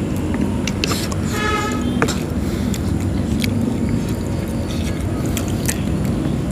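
A steady low rumble under light clicks of forks and chewing, with a short tonal toot about a second and a half in.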